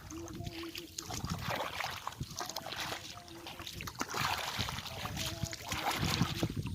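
Water splashing and sloshing as hands feel through shallow water for fish.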